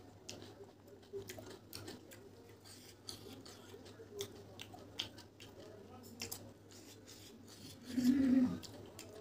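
Lip smacks and wet mouth clicks from a man whose mouth is burning from very hot green chillies. About eight seconds in he lets out a short, low groan that drops in pitch.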